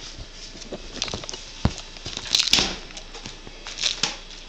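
A cat pawing and scrabbling at the camera and couch upholstery while playing: scattered taps, scratches and rustles, with a louder burst of rustling about two and a half seconds in.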